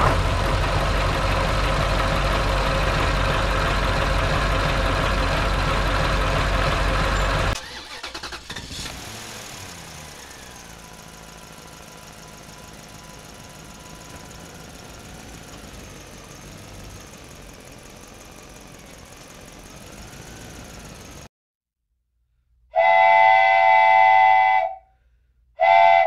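A loud, steady noise for about seven seconds, then a much quieter stretch with faint wavering tones. After a moment of silence come two blasts of a toy train's electronic whistle, each about two seconds long.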